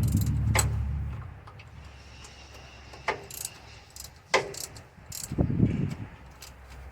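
Scattered sharp metallic clicks and clinks of hand tools and bolts being handled at a truck's brake quick release air valve, with a short low rumble near the end.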